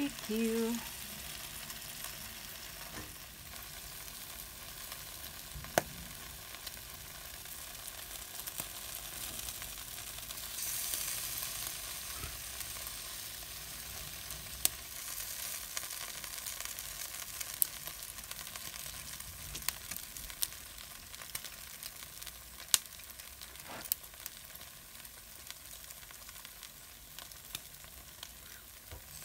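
Marinated pork belly barbecue skewers sizzling on an electric grill: a steady hiss with occasional sharp clicks. About ten seconds in, the sizzle grows louder for a few seconds as the skewers are turned over.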